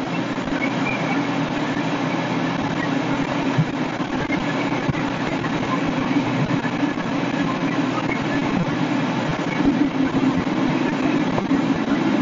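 Fire engine's diesel engine running at pumping speed, a loud steady drone while it supplies water to the hose lines.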